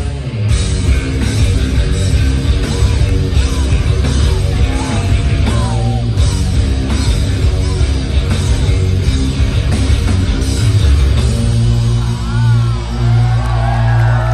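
Rock band playing live, recorded from the audience: loud distorted electric guitars, bass and drums. Near the end the drumming drops away and the band holds a ringing chord.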